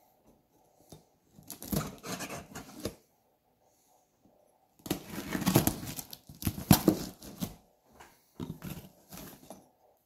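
A kitchen knife slitting the packing tape on a cardboard box, with scraping and tearing in three bursts: one about two seconds in, a longer one around the middle and a shorter one near the end.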